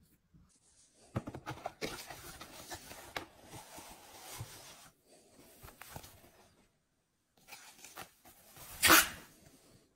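A cardboard product box and its foam wrapping being handled and opened: scattered scraping and rustling with small clicks for the first few seconds, then one short, louder rustle about nine seconds in.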